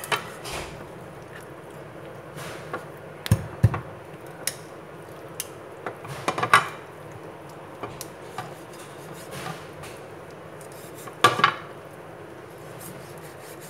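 Steel cleaver chopping through a raw chicken's neck bones onto a plastic cutting board. The knocks come singly and in pairs at irregular intervals, with the loudest a few seconds in, about six and a half seconds in, and about eleven seconds in.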